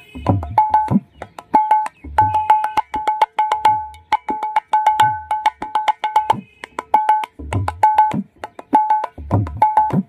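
Srikhol (khol) played with both hands: quick, ringing strokes on the small treble head and deep strokes on the large bass head, some of which bend in pitch. It is a six-beat kirtan pattern closed by a tehai, a phrase played three times to land on the first beat.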